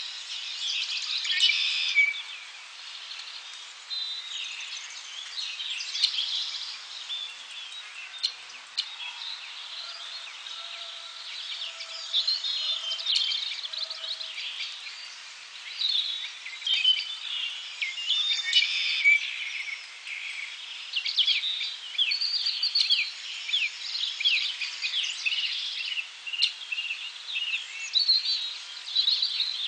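Wild birds chirping and calling, a dense chorus of quick, overlapping high notes, with a few faint lower notes near the middle.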